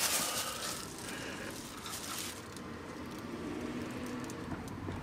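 Rustling, crinkling handling noise for about the first two seconds, then a faint low steady hum.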